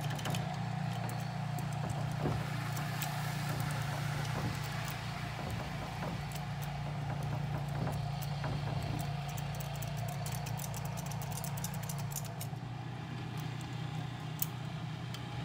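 Soft key clamped in vise grips being wiggled inside a Ford 5-pin lock cylinder to impression it: light metallic clicks and rattles, more of them near the end. Under it, a steady low engine hum.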